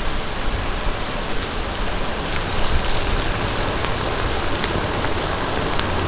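Heavy downpour: a steady hiss of rain with scattered drops ticking close by on a ripstop nylon poncho.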